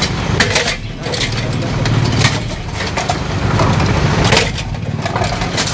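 Street traffic: a vehicle engine running with a steady low rumble, with background voices and scattered sharp knocks and clatter.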